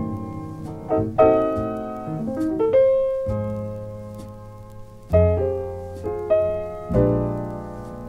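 Jazz piano playing chords and short runs, struck at uneven intervals, each left to ring and fade, from a 1968 quintet record.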